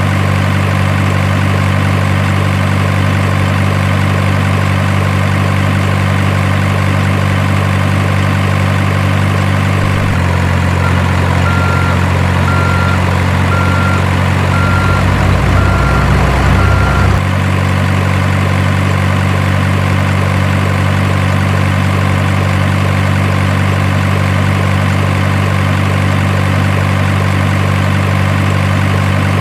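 Heavy diesel truck engine sound idling steadily. From about ten seconds in its note changes and it revs with a deeper rumble for a few seconds, while a high beeper sounds about once a second, then it settles back to idle.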